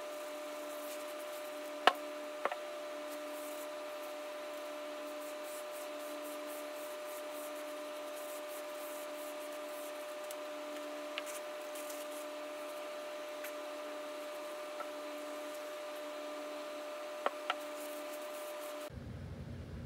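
Rag rubbing wood stain into a hickory hammer handle, with a few sharp knocks of the hammer on the bench, over a steady hum that cuts off near the end.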